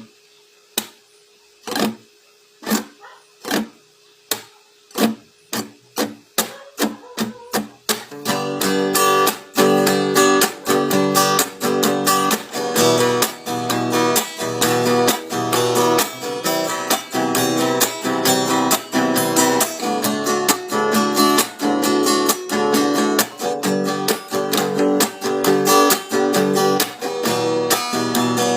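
Acoustic guitar: muted strokes across the strings, slow at first and coming faster, then about eight seconds in full strummed chords in a steady rhythmic pattern.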